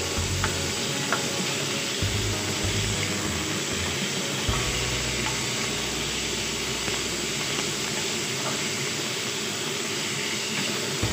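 Sliced meat and ginger strips sizzling steadily in a hot oiled wok while being stir-fried with a spatula, with a few light clicks of the spatula against the pan.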